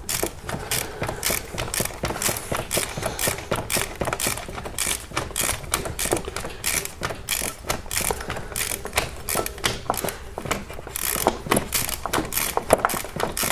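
Socket ratchet clicking rapidly and rhythmically as it backs out the lower mounting bolt of a Hyundai Santa Fe starter motor, a stiff, rusted bolt that needs many turns.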